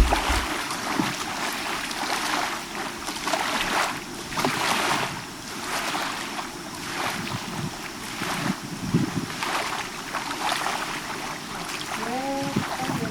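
Bay water lapping and washing against the shore in uneven surges. A short pitched call glides briefly near the end.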